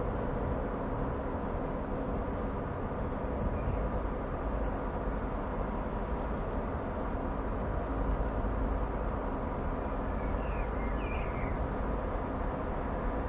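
TEP70BS diesel passenger locomotive approaching slowly with its train, its diesel engine running with a steady low rumble. A few faint chirps about ten seconds in.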